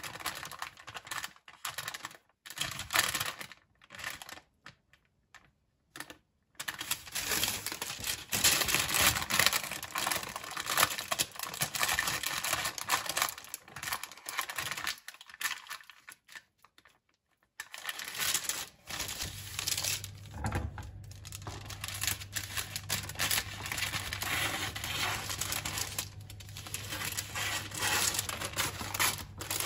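Parchment paper crinkling and rustling as hands lift it to fold the dough edges of a strawberry galette, in several stretches broken by short silent gaps. A low steady hum joins in about two-thirds of the way through.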